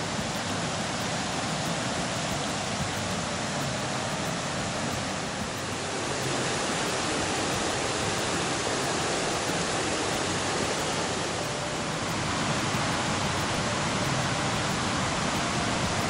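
Fast mountain stream rushing over rocks: a steady, even rush of water.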